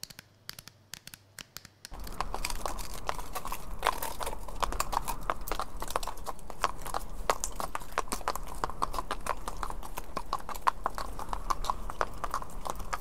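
Sound effect of a caravan's hooves at a walk. A few scattered hoof clicks come first, then from about two seconds in a dense, steady clatter of many hooves over a low rumble.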